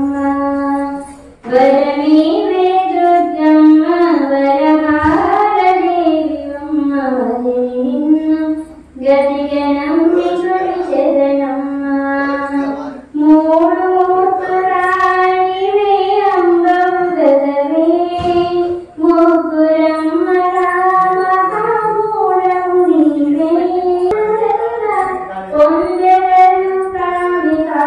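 A single high voice singing a Telugu devotional lullaby (pavalimpu song) for the deity in long melodic phrases, with short pauses for breath between them.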